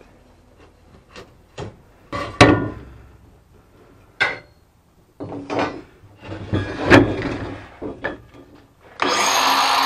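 Tools and an aluminum trim strip being picked up and set down on a plywood sheet: scattered knocks and clatter, with two louder knocks about two and a half and seven seconds in. Near the end a circular saw starts cutting the plywood, a loud steady noise.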